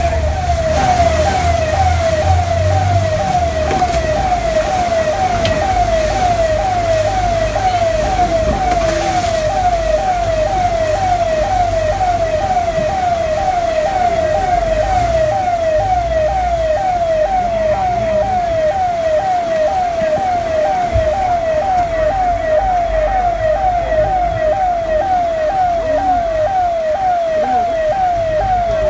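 Emergency vehicle's electronic siren sounding a steady repeating downward sweep, about one and a half to two sweeps a second, over a low vehicle rumble that is strongest in the first few seconds.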